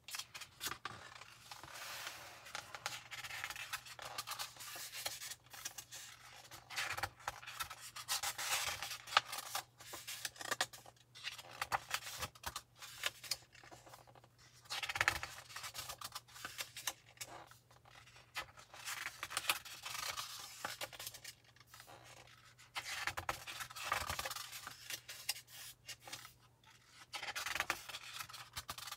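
Glossy magazine pages being handled and turned by hand: paper rustling and sliding under the fingers in uneven spells, with sharper flicks as pages turn over. A faint steady low hum lies beneath.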